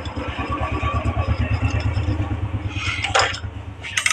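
A small engine idling steadily with a fast, even pulse. Near the end come a couple of sharp metal clinks as a bolt is worked loose with a hand tool.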